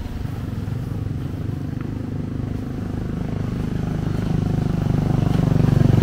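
A vehicle engine running with a rapid, even pulse, getting louder through the second half.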